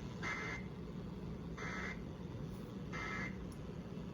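Three short bursts of Emergency Alert System end-of-message data tones from a weather radio, each a buzzy warble about a third of a second long, spaced about a second and a half apart. They signal the end of the flash flood warning broadcast.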